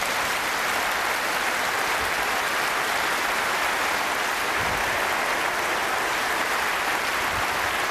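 Large audience applauding, a steady, sustained wall of clapping.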